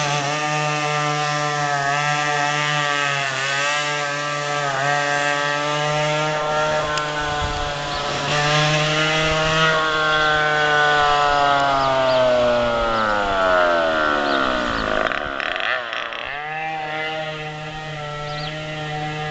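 Go-kart's small engine running, its pitch wavering up and down with the throttle. Midway the pitch falls steadily for several seconds, dips briefly, then settles back to a steady drone.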